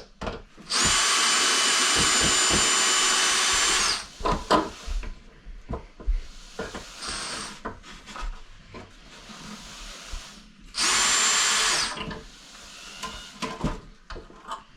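Electric power drill running into the wall for a TV mount bracket, in two runs: a steady whine for about three seconds, then a shorter one about a second long near the end. Light knocks and handling clatter come between the runs.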